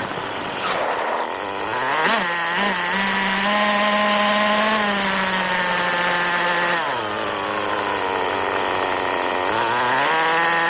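Buggy engine running and revving. Early on the pitch climbs, with two quick throttle blips, then holds at a steady higher speed for several seconds. It drops back to a lower speed, then rises again near the end.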